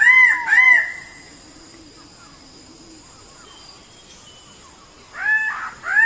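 Bird calls: short arched notes, each rising and falling in pitch, given twice at the start and again near the end after a quieter gap of about four seconds. A faint steady high tone runs underneath.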